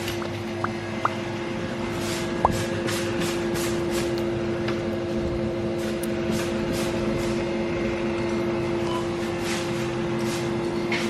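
Steady vehicle hum with several held tones, heard from inside a car, with a few light clicks.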